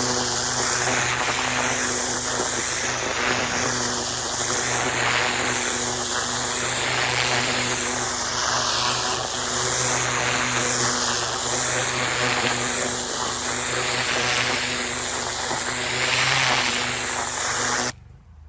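Pressure washer running with an oscillating spray tip: a steady motor hum under loud water-jet hiss that swells and falls about once a second as the tip swings. The spray cuts off suddenly near the end.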